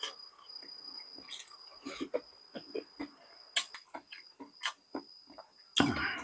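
Close-up eating sounds: chewing with many short wet clicks and lip smacks, a louder noisy slurp or breath near the end, over a steady high-pitched whine.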